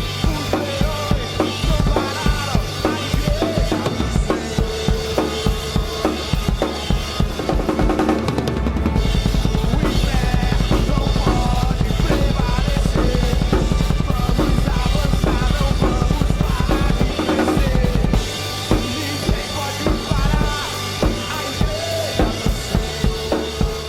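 Drum kit played along to a recorded song: a steady kick-and-snare beat, with a long stretch of fast, dense drumming in the middle.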